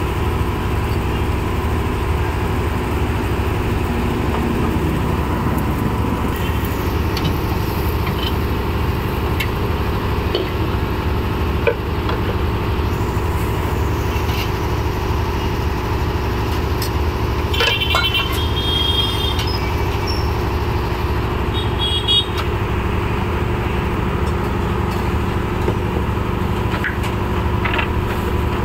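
Steady engine and road-traffic noise, with a few sharp metallic clinks of steel utensils, two of them ringing briefly.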